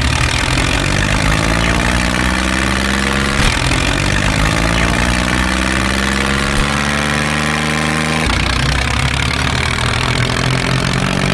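Tractor engine running steadily at a low idle, its pitch drifting slowly. The sound changes abruptly about three and a half seconds and eight seconds in, like joined segments of an engine recording.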